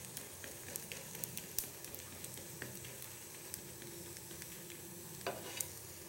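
A ghee-coated patisapta crepe frying on a flat griddle: a steady gentle sizzle with many small crackles and pops, and one brief louder scrape about five seconds in.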